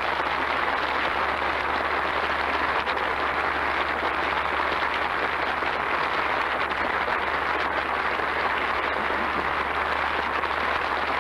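Audience applauding steadily, with a low steady hum under it.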